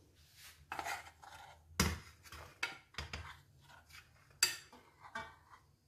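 Metal spoon scraping and knocking against a saucepan and a steel plate while scooping out cooked maize-flour dough: a run of irregular clinks and scrapes, the loudest about two seconds in and again past four seconds.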